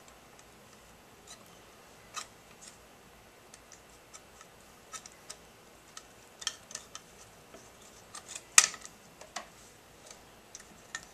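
Small hard parts clicking and tapping as a lawn mower carburetor's spacer bar is worked onto its mounting bolts: scattered light clicks, more of them from about six seconds in, with the loudest sharp click at about eight and a half seconds.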